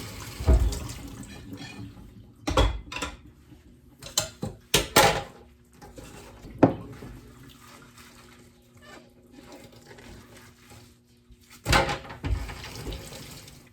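Running water with a scattering of sharp knocks and clatters.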